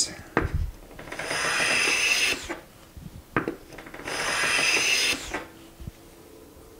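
Harbor Freight No. 33 bench plane taking two long strokes along the edge of a poplar board. Each stroke is a steady hiss of the sharpened blade cutting a shaving, with short knocks as the plane is set down and lifted between strokes.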